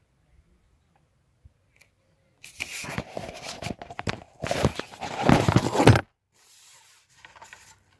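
Handling noise from the recording phone: loud rustling and scraping with many sharp clicks as the phone is moved and covered, starting about two and a half seconds in and stopping suddenly near six seconds.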